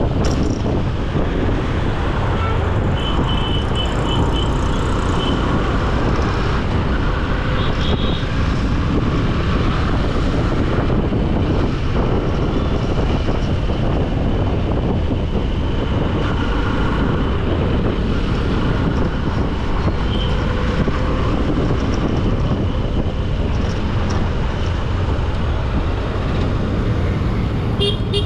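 Continuous road traffic noise while moving through city streets, with a heavy, steady low rumble of wind on the microphone and a few short high beeps now and then.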